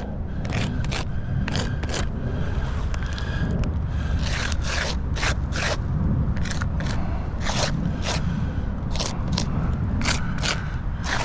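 Rapid, irregular gritty scrapes and scuffs on asphalt roof shingles, over a steady low rumble of wind on the microphone.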